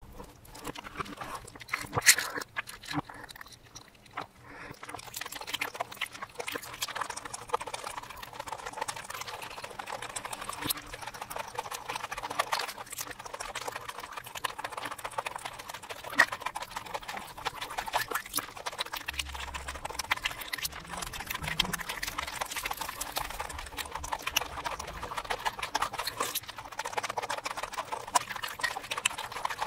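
Close-miked eating sounds of crumb-coated fried mozzarella balls in cheese sauce, played in reverse: dense crunching, crackling clicks and wet, sticky mouth sounds, with one sharper crunch about two seconds in.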